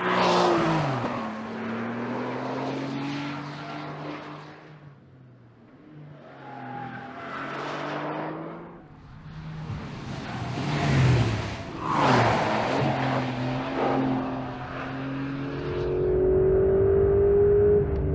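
A 2025 Porsche 911 Carrera GTS's 3.6-litre flat-six exhaust, the car swelling up loud and fading away several times with its pitch dropping as it goes past. Near the end there is a steadier, slowly rising note.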